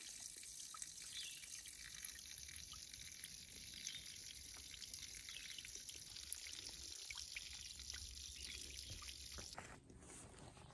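Small trail-side water source trickling and dripping steadily, a faint even splashing hiss with small drips; it stops abruptly shortly before the end.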